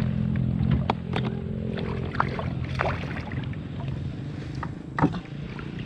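Kayak on the water: scattered sharp knocks and clicks over a steady low hum, with a sharper knock about five seconds in.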